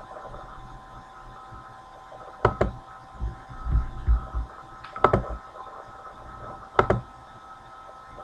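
Computer mouse clicking: three sharp double clicks a couple of seconds apart, with a few dull low thumps between the first two, over a steady electrical hum.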